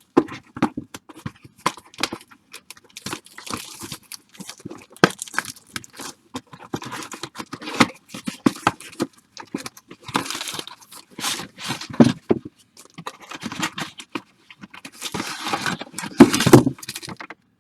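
Plastic wrapping on a pack of baseball cards being torn open and crinkled, with cards handled: irregular rustling, crackling and clicks. The loudest burst of crinkling comes near the end.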